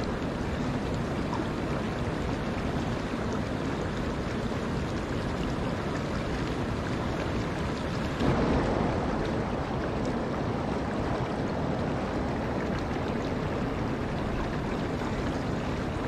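Shallow forest stream running over rocks: a steady rush of flowing water, briefly swelling louder about eight seconds in.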